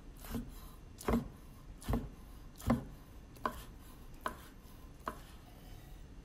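Santoku knife slicing a grilled chicken breast on a wooden cutting board: the blade cuts through and knocks on the board about seven times, a stroke a little under every second.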